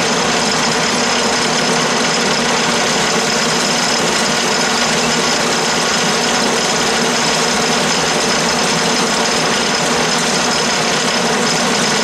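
12-inch Atlas/Craftsman lathe running steadily under power longitudinal feed while a round-nose tool cuts a taper on 3/4-inch aluminium bar. The motor and gear hum carries a steady high whine.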